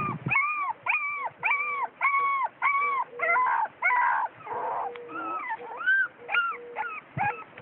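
Young puppies whimpering: a run of short, high-pitched cries, about two a second, each rising and falling in pitch, turning more ragged and uneven about halfway through.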